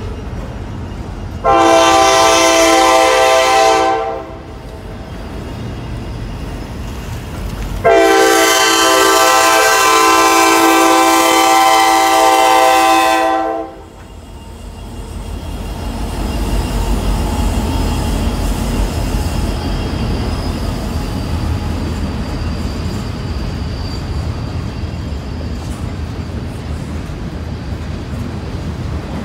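Diesel freight locomotive's air horn sounding for the crossing: a chord of about two and a half seconds, then a longer one of about five seconds. A steady low rumble follows as the Norfolk Southern locomotive and its freight cars roll through the crossing.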